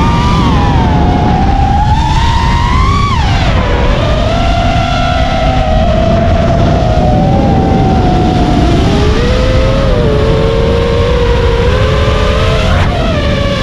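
FPV quadcopter's motors and propellers whining, the pitch rising and falling with the throttle, with a sharp drop about three seconds in and a quick surge near the end, over a heavy low rumble of wind on the microphone.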